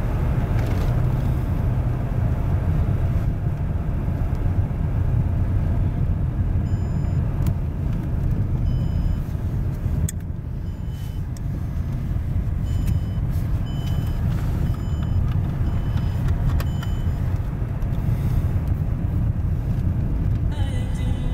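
Inside a Mercedes-Benz car driving on an unpaved gravel road: a steady low rumble of tyres on the rough surface together with the engine running. Music comes in near the end.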